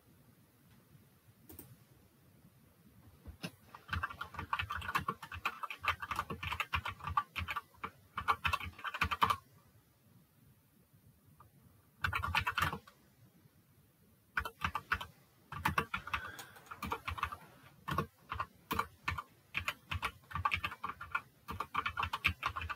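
Computer keyboard typing: bursts of quick keystroke clicks, with pauses of a second or two between the bursts.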